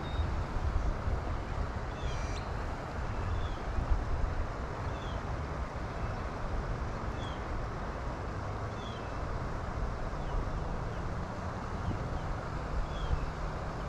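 Wind rumbling on the microphone, with a bird repeating a short, high, falling chirp every couple of seconds. A faint steady low hum comes in near the end.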